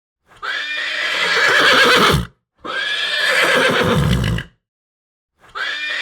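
Horse neighing: three whinnies of about two seconds each, with short silences between them, the third starting near the end.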